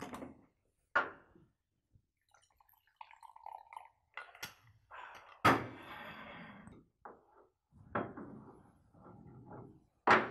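Coffee poured from a thermos flask into a ceramic mug, with knocks and clatter from the flask, its cap and the mug on the table, and short stretches of pouring and sliding.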